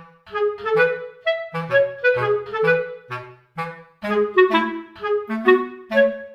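Background music: a light, bouncy tune of short, detached notes over a moving bass line, with a woodwind-like sound.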